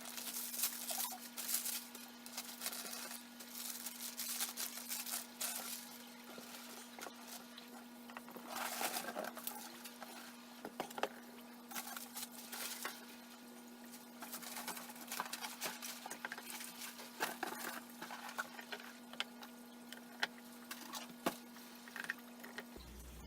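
A shipping box being opened and its packaging handled: irregular rustling, crackling and light clicks, over a steady low hum.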